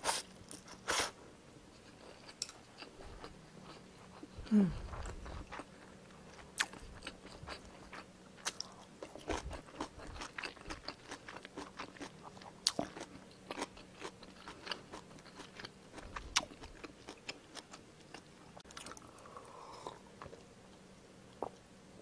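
Close-miked chewing of a mouthful of stir-fried instant noodles (Indomie Mi Goreng), with irregular wet mouth clicks and smacks and one louder, falling-pitched mouth sound about four and a half seconds in.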